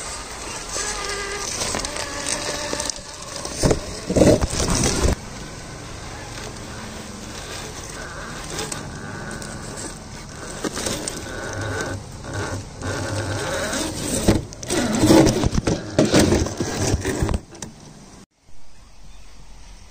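Radio-controlled scale crawler driving, its electric motor and gears whining and shifting in pitch with the throttle. There are two louder rough stretches, around four and fifteen seconds in, and the sound drops out suddenly near the end and comes back quieter.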